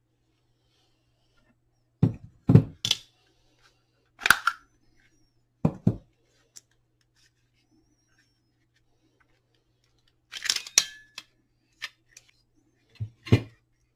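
Hard plastic housing of a Makita 18V lithium-ion battery pack being pulled apart and handled: several separate bursts of sharp plastic clicks and clacks with pauses between, as the cover and housing halves unclip.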